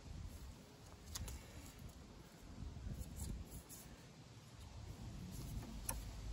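Screwdriver tightening a worm-drive jubilee clip on a hose: faint scraping with a few sharp clicks, about a second in and again near the end.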